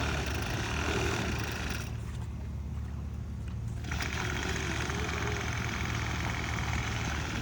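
Small weed-eater engine driving a homemade kayak motor, running with a steady low hum.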